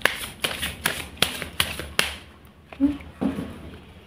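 A deck of cards being shuffled by hand: a run of sharp card snaps, about two or three a second, that stops about two seconds in.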